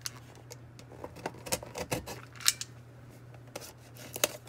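Kobalt utility knife scraping and slitting at a small cardboard box while the box is handled: scattered sharp clicks and short scratches, the sharpest about two and a half seconds in.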